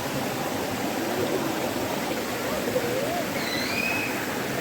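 Waterfall water rushing in a steady, even stream.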